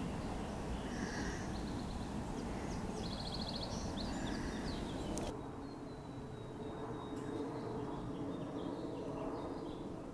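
Outdoor ambience with wild birds chirping, including a short rapid trill about three seconds in. About halfway through the background changes abruptly to a quieter one, with a faint, steady high tone.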